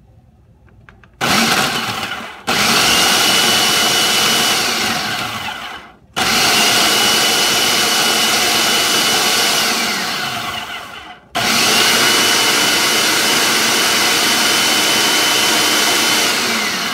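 Countertop food processor motor chopping preserved lemon, garlic and fresh herbs: one short burst about a second in, then three long runs of several seconds. Each run rises to speed, holds, and slows down before the next one starts.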